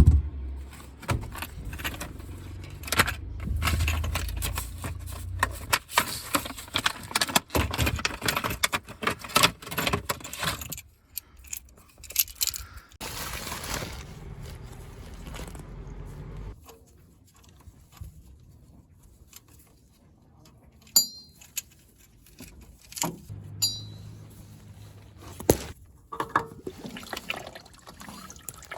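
Old engine oil pouring and splattering from a just-removed oil filter and its housing into a drip pan, with many clicks and metal knocks as the filter is handled. After about ten seconds it turns mostly quiet, with a few sharp metallic clinks, two of them ringing briefly.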